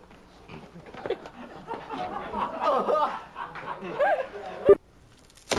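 People laughing and giggling, with a sharp knock near the end.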